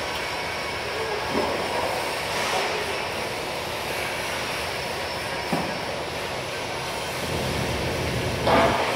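Steady machine noise in a metal-working shop, with a couple of light knocks and a louder burst near the end.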